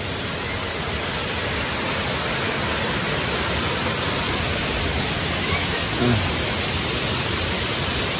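Fast stream of cave spring water rushing over rocks, a steady, even rush that grows slightly louder.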